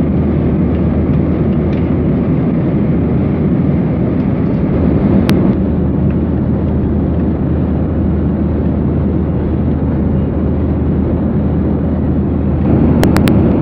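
Steady cabin noise of a Boeing 737-800 in flight: low-pitched engine and airflow sound. A single sharp click about five seconds in, and three quick clicks near the end as the armrest's plastic volume and channel buttons are pressed.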